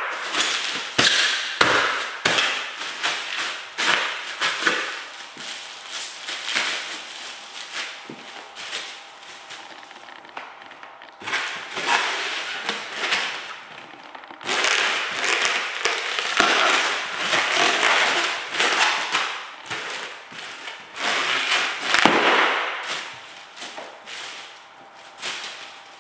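Mylar foil balloons crinkling and crackling as they are stomped and squashed underfoot, in loud stretches that come and go. Feet thud on the gym mat now and then, with a sharper knock about two-thirds of the way through.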